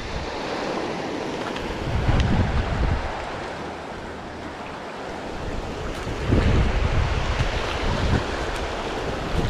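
Surf breaking on a reef edge, a steady wash, with wind buffeting the microphone in gusts about two seconds in, again around six seconds, and briefly near eight.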